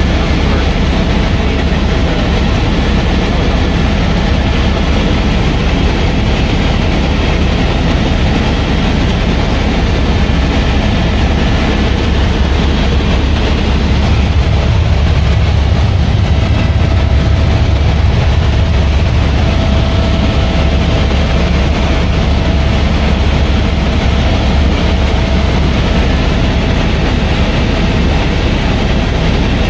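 Helicopter in flight, heard from inside the cabin: a loud, steady drone of rotor and engine, heaviest in the deep bass, with a faint steady whine above it.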